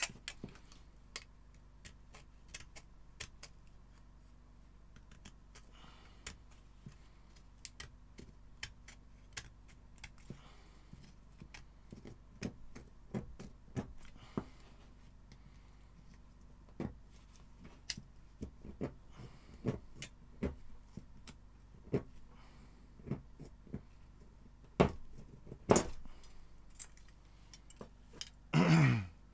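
Scattered small clicks, taps and scrapes of hand-work at a bench, as excess material is trimmed off a small fuse assembly, with a few louder knocks near the end.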